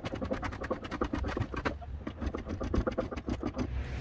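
Rapid metallic clicking and scraping, about ten clicks a second over a low rumble, as an L-series engine is hoisted out on a chain and grinds against the rusted front wing, bending it.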